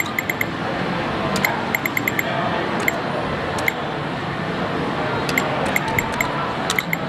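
Video poker machine giving short, high electronic beeps, singly and in quick runs of three to five, as cards are held and dealt, over a steady din of casino background noise.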